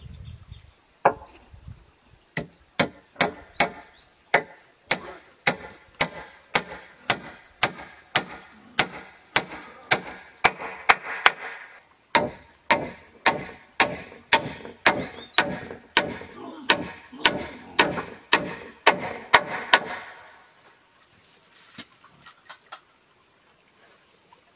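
Claw hammer driving nails into the timber rafters of a small roof frame: a steady run of sharp strikes, about two a second, each with a short metallic ring. The strikes stop about twenty seconds in.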